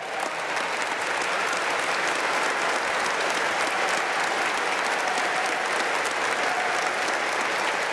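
A large congregation applauding, a dense steady clapping that swells up in the first second and then holds.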